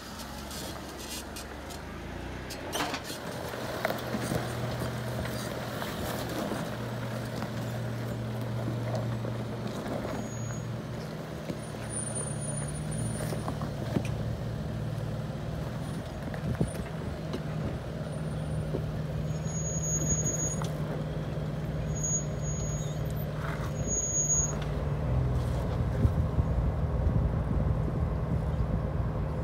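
Jeep Wrangler engine running at crawling speed on a rocky trail, a steady low drone whose pitch steps up about a third of the way in and shifts again near the end, with a few short knocks.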